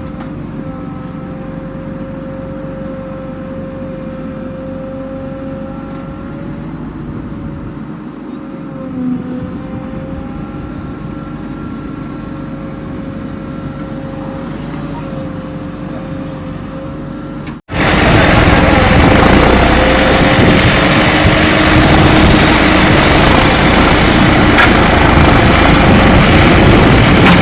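Heavy diesel engine running steadily with a held drone. About two-thirds of the way through, an abrupt cut brings in a much louder, closer engine.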